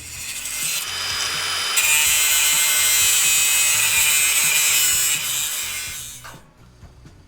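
A power grinder working the car body's sheet steel, a steady hissing screech that gets louder about two seconds in and stops about six seconds in.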